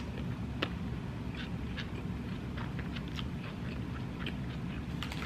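A person chewing a mouthful of taco with her mouth closed: irregular small clicks of chewing over a steady low hum.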